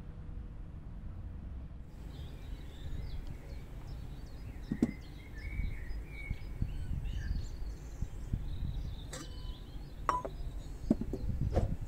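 Outdoor ambience: a steady low rumble with birds chirping from about two seconds in, and a few sharp knocks as potatoes and a metal pot lid are handled on a wooden board, most of them in the second half.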